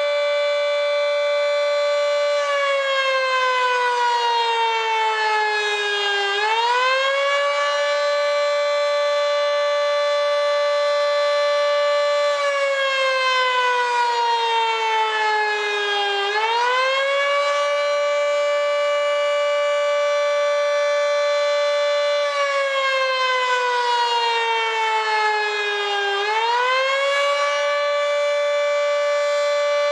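Federal Signal 2T22 three-phase dual-tone outdoor warning siren sounding the attack signal, with its top intake blocked. Its chord holds steady, then sags slowly in pitch over a few seconds and swings quickly back up, three times about ten seconds apart.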